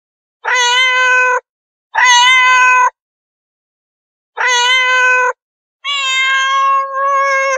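Domestic cat meowing four times: three even, level meows of about a second each, then a longer, wavering one near the end.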